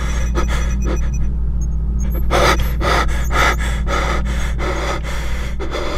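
A man gasping and panting hard, short harsh breaths about two a second with a brief pause a little after the first second, over a steady low hum.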